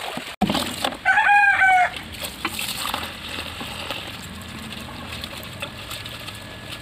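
A rooster crows once, about a second in, a call of nearly a second with a slightly falling pitch. Hands swishing leaves in a basin of water make faint splashing around it.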